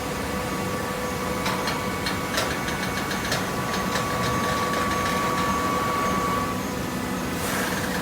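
Baling press machinery running with a steady mechanical hum and a high whine, scattered clicks, and a short hiss near the end.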